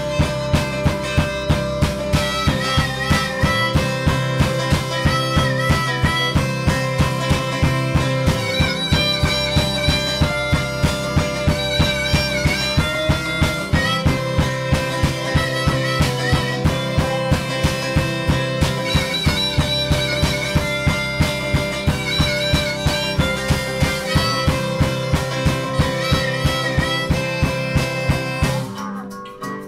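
Live band playing an instrumental passage: drum kit keeping a steady beat under guitars and a harmonica, with high sustained notes wavering over the top. The music drops out briefly near the end.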